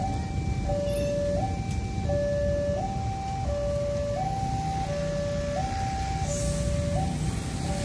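Railway level-crossing warning alarm sounding a steady two-tone electronic signal, high and low notes alternating about every 0.7 s, warning that a train is approaching while the barriers are down. Beneath it runs the low rumble of waiting road traffic.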